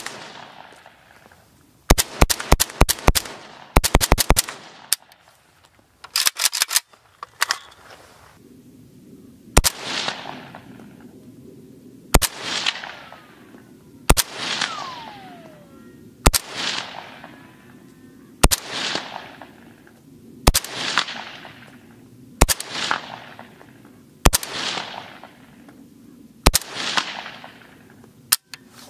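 AK-pattern rifle firing: quick strings of rapid shots in the first several seconds, then single shots about every two seconds, each followed by a fading echo.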